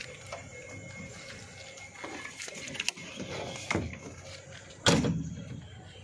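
JCB 3DX backhoe loader's cab door being pulled shut with a loud bang about five seconds in. Before it come lighter knocks and clicks as someone climbs up into the cab. The engine is not running.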